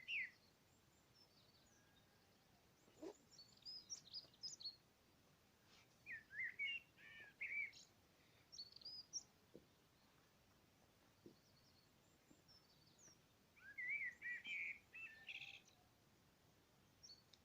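Birds singing: several bursts of quick, high chirps and warbles with quiet gaps between them, the longest run of song about two-thirds of the way through.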